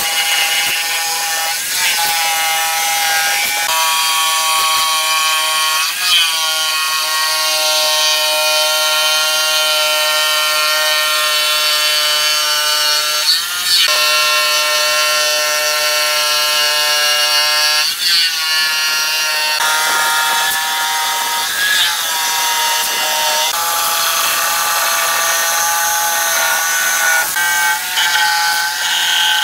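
Bosch jigsaw cutting a curve through a thick wooden tabletop: a steady motor whine with the rasp of the blade, dipping briefly in pitch every few seconds.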